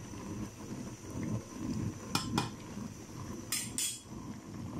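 A metal spoon stirring rice in a pot of boiling water, clinking against the metal pot in two quick pairs, about two seconds in and again about three and a half seconds in. The boiling water bubbles underneath.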